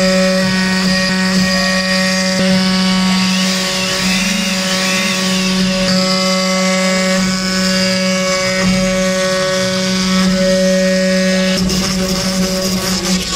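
CNC router spindle running at a steady pitched whine as the bit carves into wood, with a rough cutting hiss over it.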